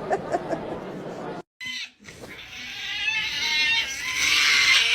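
A cat's long, drawn-out yowl that starts about two seconds in and bends up and then down in pitch. It comes after a quick run of short, rapid voice-like sounds that stop suddenly about a second and a half in.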